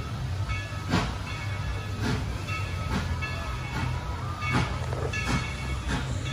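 Dollywood's No. 70, a narrow-gauge Baldwin 2-8-2 steam locomotive, pulling away from a standstill: slow, uneven exhaust chuffs about once a second over a low rumble, with a ringing tone coming and going between the beats.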